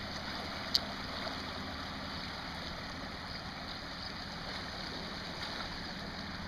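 Creek water swollen by heavy rain runoff rushing steadily through the inlet under a bridge, an even wash of noise. A brief sharp click just under a second in.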